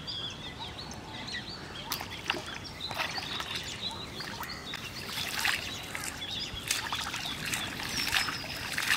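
Pond water splashing irregularly, growing busier in the second half, as a hooked fish thrashes at the surface beside the bank. Small birds chirp, mostly in the first couple of seconds.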